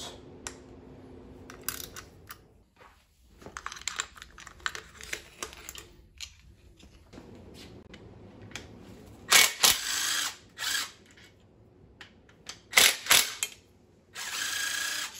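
Cordless power tool spinning out the 8 mm bolts of a timing-chain guide. Several short bursts of the motor whirring come in the second half, the last lasting about a second near the end, with scattered clicks and clatter of the socket and metal parts between them.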